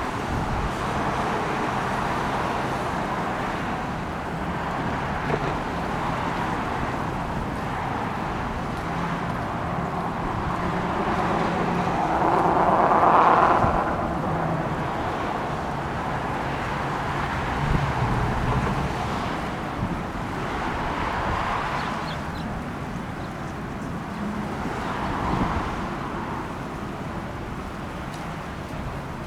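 Outdoor ambience of steady road traffic with wind buffeting the microphone; one louder vehicle swells past about twelve seconds in.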